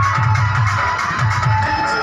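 Electronic dance music played loud through the Shine 3D DJ sound system, with a heavy, repeating bass beat under held mid-range tones.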